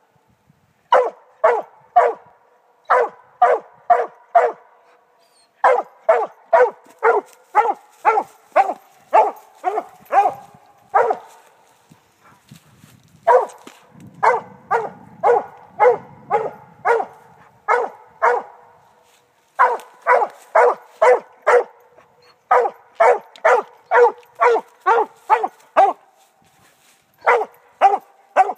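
Redbone coonhound treeing: barking up a tree at its treed quarry, fast and steady at about three barks a second, in runs broken by short pauses.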